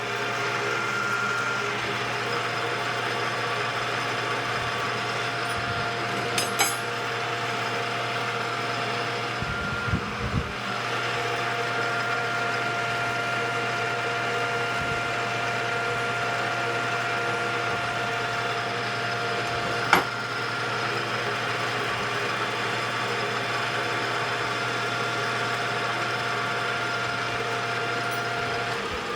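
Metal lathe running steadily while a parting tool cuts through a ring of 1/2-inch schedule 40 pipe: a steady hum with a thin whine, briefly changing about ten seconds in, with a sharp click about twenty seconds in.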